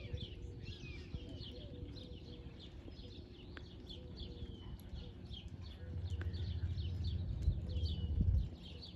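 Many small birds chirping and singing, a dense chorus of short, quick high notes. Under it is a low rumble that grows heavier from about six seconds in.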